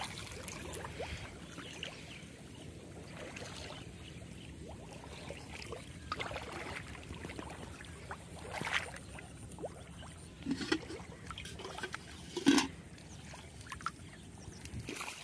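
Shallow floodwater sloshing and trickling as a gill net is pulled and worked by hand, with a few short, louder splashes in the second half.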